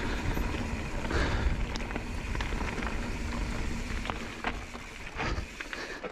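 Mountain bike riding down a loose slate-gravel trail: wind rumbling on the camera microphone and tyres crunching over the stones, with frequent clicks and rattles from the bike and loose stones. It gets quieter near the end as the bike slows.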